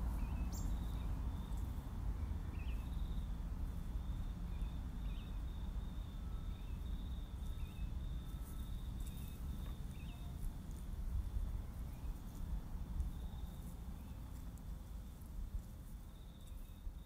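Noise from a gallery sound installation: a constant low rumble with a thin, steady high whine over it and short chirps scattered through.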